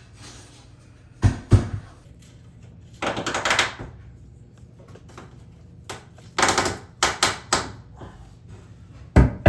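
Plastic LASH tile leveling clips and wedges being handled and pushed into place between wall tiles: a few short bursts of rapid clicking, with a couple of dull knocks.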